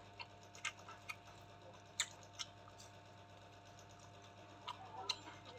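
Eating sounds: irregular short clicks and smacks of chewing, about seven in all, the loudest about two seconds in.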